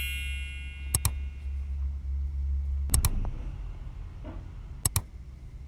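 A chime rings out at the start. Then a steady low hum runs under sharp double clicks, which come about every two seconds.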